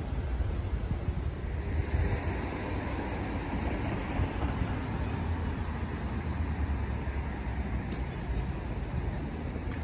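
Street traffic noise: a steady low rumble of passing vehicles that swells for a moment about two seconds in.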